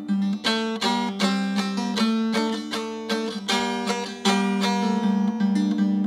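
Background music: a plucked string instrument picking a quick melody over a repeating low note.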